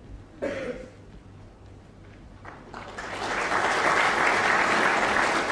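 Snooker audience applauding in the arena. The clapping swells in about three seconds in and stays at full strength.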